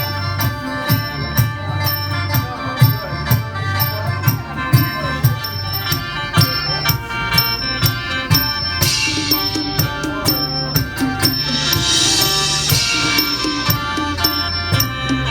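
Khaen, the Isan bamboo free-reed mouth organ, playing held chords over a steady hand-drum beat in a live folk ensemble. A high hiss of percussion swells twice in the second half.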